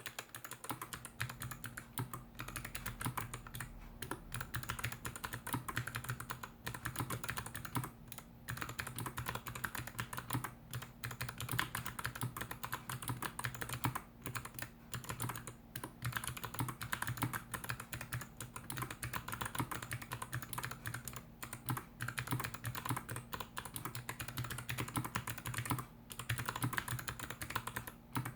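Slow typing on a GK61X mechanical keyboard with NovelKeys x Kailh BOX Jade clicky switches in a stainless steel plate and plastic case, with DSA keycaps. Each keystroke gives a sharp click, and short pauses come every few seconds.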